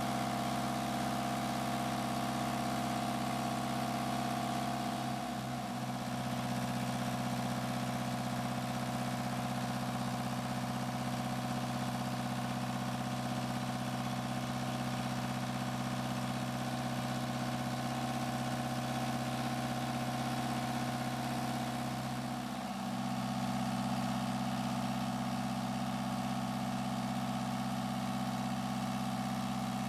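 Kubota V2203 four-cylinder diesel engine running at a steady idle on a test stand.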